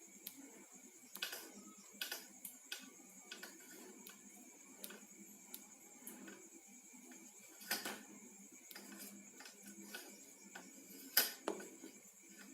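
Faint, irregular clicks and rustling of the thin plastic-insulated wires of a UTP network cable being handled, as its twisted pairs are untwisted and separated by hand. Two sharper clicks stand out in the second half.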